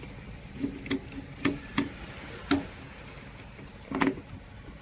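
Irregular clicks and light metallic knocks, about six of them, the loudest about four seconds in, with a couple of brief high jingles: tools and metal parts being handled while the machine is being hooked up.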